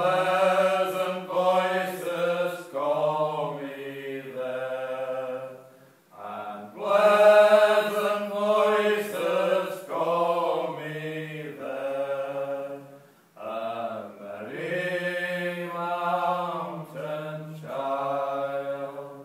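Men singing an old English song unaccompanied, in long held phrases with short breaks for breath about six and thirteen seconds in.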